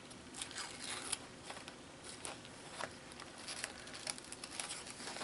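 Wax paper being slowly peeled off a wet painted journal page, with faint crinkling and scattered small crackles as it pulls away from the paint that is sticking to it.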